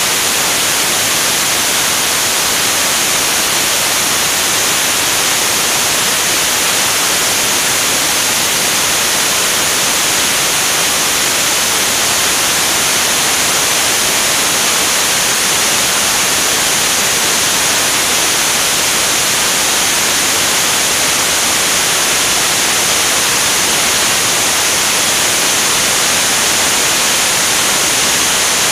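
Steady, loud rushing hiss of airflow over a wing-mounted camera at flight speed, bright and even with no change in level.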